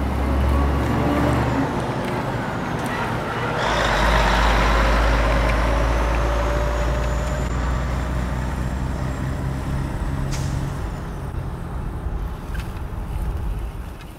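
Truck engine sound running steadily as the toy vehicles drive off: a low rumble that swells with added hiss about four seconds in and fades near the end.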